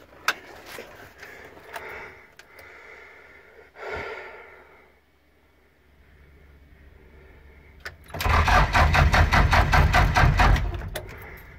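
UAZ-469's starter motor cranking the engine in a rhythmic run of strokes for about two and a half seconds, starting about eight seconds in, without the engine catching. The starter itself works after its repair; the battery is too weak to start the engine, and more glow-plug heating is needed. Before that, a few light clicks from the dashboard switches.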